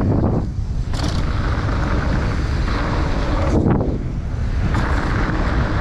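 Wind rushing over a helmet- or bike-mounted action camera's microphone, with a mountain bike's tyres rumbling over a dirt trail on a fast descent. The rush is steady, with a few surges in level.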